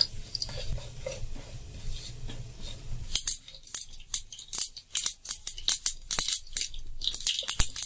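Cumin and mustard seeds crackling in hot oil in a non-stick pan: a faint sizzle at first, then from about three seconds in a quick, irregular run of sharp pops. The popping is the sign that the tempering oil is hot enough and the seeds are ready for the next ingredients.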